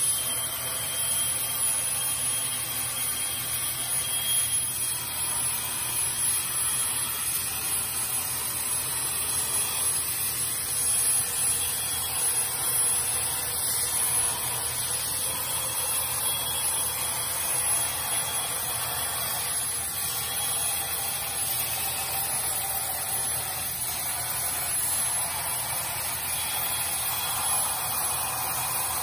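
Steady machinery noise: an even hiss with a faint hum underneath, holding at one level without a break.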